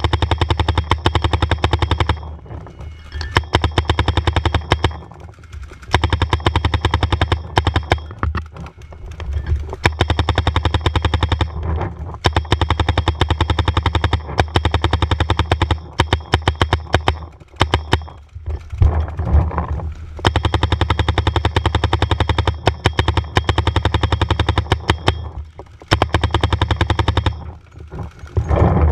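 Paintball marker fire: rapid strings of shots, many per second, in bursts of one to several seconds with short pauses between.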